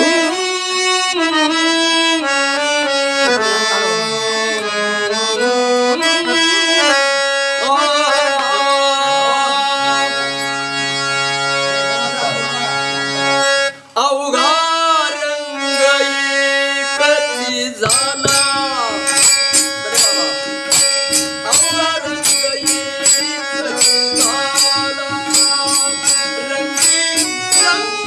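Harmonium playing the melodic instrumental introduction to a song, with a brief break about fourteen seconds in. About eighteen seconds in, percussion joins, keeping a steady beat of sharp strokes under the melody.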